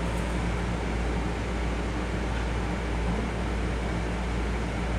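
Steady low rumble with an even hiss over it: the background noise of a Long Island Rail Road M7 electric railcar's restroom, heard in the small enclosed room.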